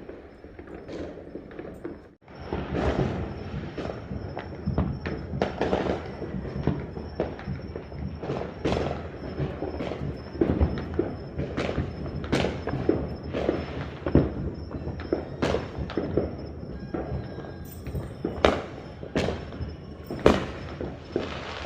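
New Year fireworks and firecrackers going off across the neighbourhood: a dense, continuous run of overlapping pops and bangs, with a brief drop-out about two seconds in.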